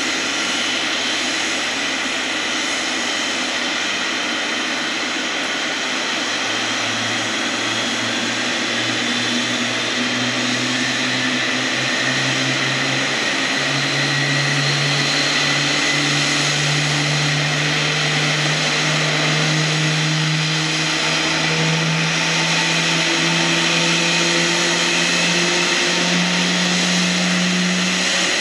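General Electric GE90 turbofan on a Boeing 777 spooling up during engine start. A low drone, the 'vaawn', begins about six seconds in and climbs slowly and steadily in pitch over a constant high whine.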